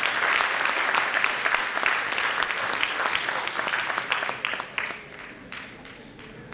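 Audience applauding, many hands clapping at once, thinning to a few scattered claps about five seconds in.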